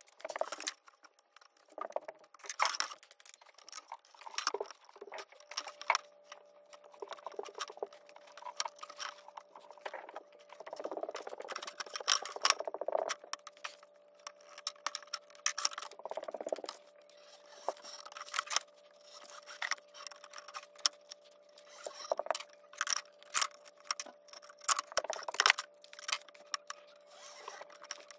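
Irregular clicks, taps and scrapes of hand work on a metal window-screen frame on a wooden workbench: a spline roller pressing the spline and new screen mesh into the frame's channel, with a few longer rubbing passes along the edge.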